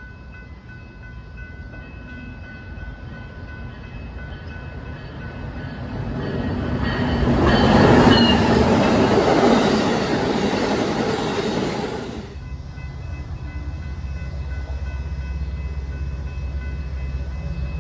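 Amtrak Siemens SC44 Charger diesel locomotive and its passenger cars passing at speed. The noise builds to its loudest as the locomotive goes by about eight seconds in, with a thin high whine over it. It cuts off sharply about twelve seconds in as the last car clears, leaving a low steady rumble.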